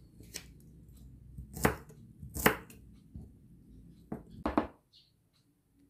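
Kitchen knife chopping Asian shallots on a wooden cutting board: about five separate, unevenly spaced knocks of the blade on the board. The sharpest come about one and a half and two and a half seconds in.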